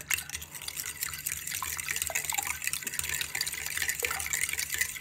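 Fork whisking a thin, milky marinade with egg and spices in a glass bowl: steady sloshing and splashing of the liquid, with light ticks of the fork against the glass.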